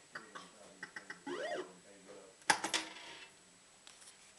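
Barcrest MPU3 fruit machine playing a spin: scattered ticks while the reels turn, electronic tones sweeping up and down about a second in, then a run of loud sharp clacks past the middle.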